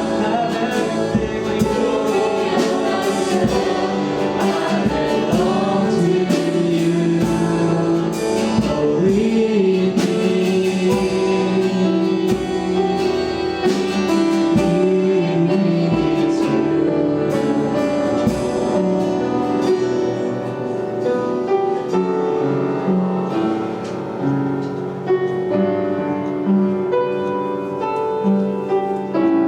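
Voices singing a worship song with keyboard accompaniment; the singing is most prominent in the first third, after which the keyboard carries on with held chords.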